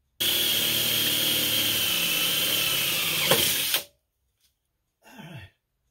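Cordless drill running steadily against the metal trike frame for about three and a half seconds, its whine sagging slightly, with a sharp click shortly before it stops.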